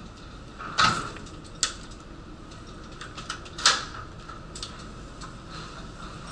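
Several sharp knocks and clacks, the loudest about a second in and again a little past halfway, over a steady mechanical hum with a constant tone.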